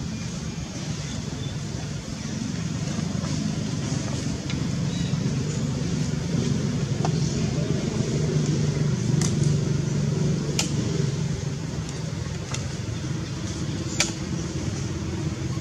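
Steady low rumble like a running motor vehicle engine, swelling toward the middle, with a few short sharp clicks.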